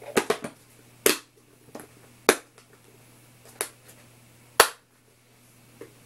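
A quick run of sharp clicks, then four single clicks roughly a second apart, the last the loudest.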